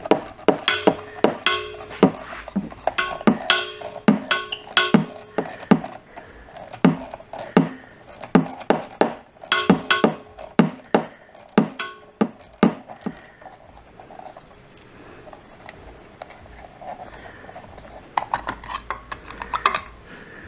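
Small metal hand tools and driver bits clinking and clattering: many sharp clicks with a short metallic ring, coming in quick clusters, sparser for a few seconds near the end.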